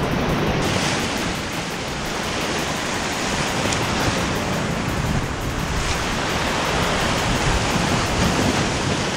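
Ocean surf breaking and washing against a rock ledge, a steady rushing noise, with wind buffeting the microphone.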